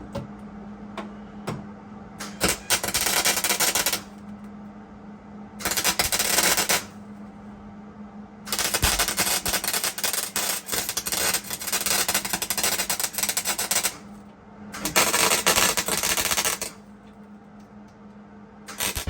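Welder crackling in four bursts as the replacement floor pan is welded into the car's floor, the longest about five seconds, with short pauses between beads. A steady low hum runs underneath.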